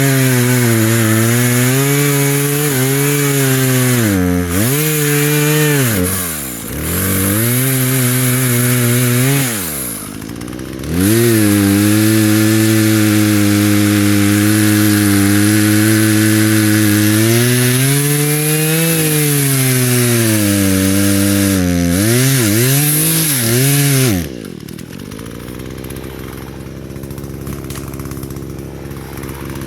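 Small two-stroke Husqvarna 120 chainsaw cutting limbs: the engine runs at high revs with its pitch sagging and recovering several times as the chain loads up in the wood. Near the end it drops to idle for several seconds, then revs up again.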